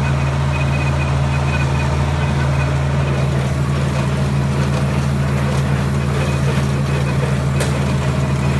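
John Deere 4020 tractor engine running steadily while it pulls and powers a hay baler, with a faint high whine coming and going and a single sharp tick near the end.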